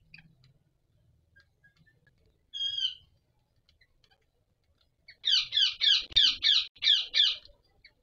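Ringneck parakeet calls: one short call about two and a half seconds in, then near the end a louder, fast run of about eight repeated notes, each falling in pitch.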